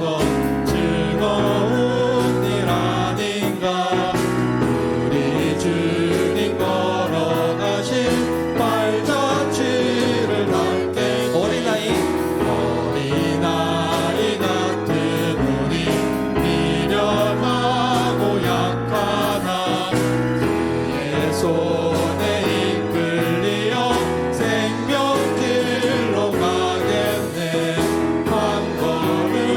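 Church praise music: a worship song played and sung without a break.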